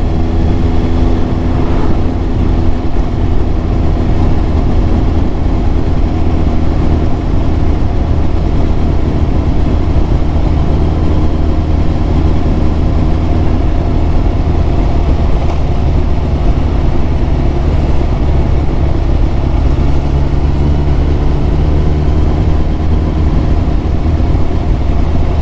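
Yamaha YZF1000R Thunderace inline-four motorcycle engine running at road speed under a steady rush of wind noise, its engine note drifting slowly up and down.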